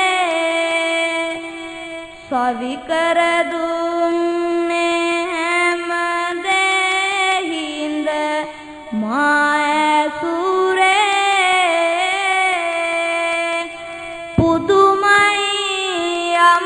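A young boy monk's voice chanting Sinhala Buddhist verse (kavi bana) unaccompanied into a microphone, in long, drawn-out held notes that waver and slide between pitches. The chant breaks off briefly three times, about two, nine and fourteen seconds in, then resumes.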